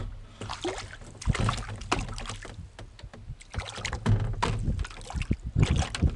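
A hooked perch splashing at the surface beside a small boat as it is landed by hand, with irregular splashes, sloshing and knocks against the boat.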